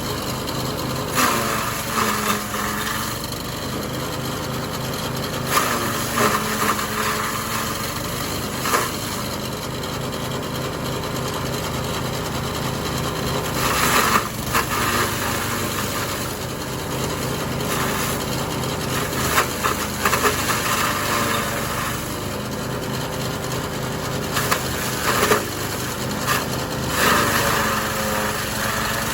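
Engine-driven forage chopper running steadily while chopping king grass and corn stalks, with irregular loud surges every few seconds as stalks are fed into the blades.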